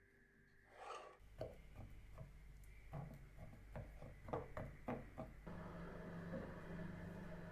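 Kitchen handling sounds during baking: a brief rustle, then light, irregular knocks and clicks of utensils and dishes, followed by a steady low hum that starts about two-thirds of the way in.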